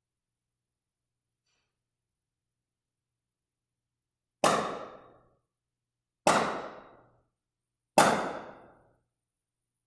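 Three loud, sharp bangs about a second and a half to two seconds apart, each ringing away in the church's echo: the strepitus, the loud noise made in a Tenebrae service to mark Christ's death.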